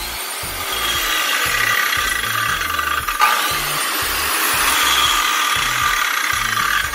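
Makita 5740NB electric circular saw running with no load, blade spinning, briefly dropping and spinning up again about three seconds in. Its gear noise persists after new bearings: the repairer says only replacing the mating gear and the armature together would fully cure it.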